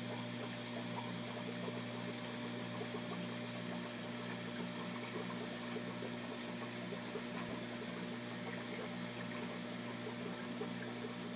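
Aquarium pump running: a steady low hum with a faint, constant trickle of water.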